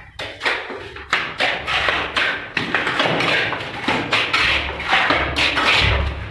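Plastering work: a rapid run of slaps and scrapes as cement mortar is worked onto a surface with hand tools, roughly two strokes a second.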